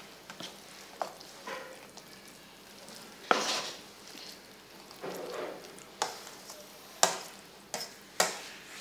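Metal spoon stirring a wet minced-pork mixture in a stainless steel bowl: soft squelching and scraping with sharp clinks of the spoon against the bowl's side, the loudest about three seconds in and around seven and eight seconds.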